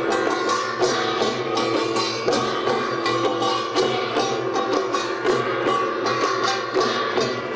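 Korean pungmul music: fast, driving strikes of drums and gongs, several a second, over a steady held melody line.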